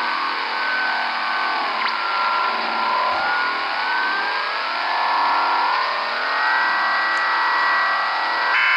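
Shortwave radio receiver in lower sideband around 10312 kHz, putting out a strange warbling signal: many tones sliding slowly up and down in pitch over a bed of hiss, with one steady whistle that steps gradually higher.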